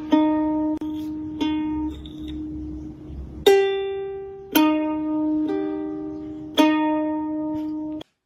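Background music: a slow melody of single plucked-string notes, each starting sharply and fading, about one a second, which cuts off suddenly near the end.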